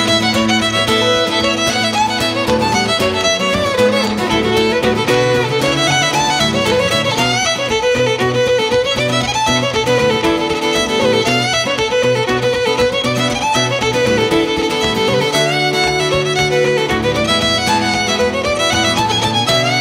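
Fiddle and acoustic guitar playing a Scottish reel: the fiddle carries the quick melody while the guitar strums chords underneath.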